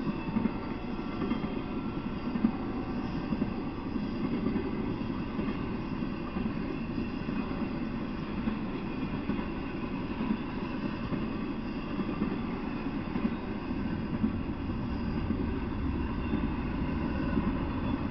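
Freight train of empty flatcars rolling past, a steady rumble with scattered sharp clanks from wheels and couplers.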